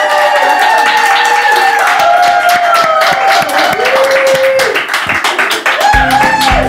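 Several voices whooping and cheering over fast, dense clapping. About six seconds in, guitar-led country-style music starts.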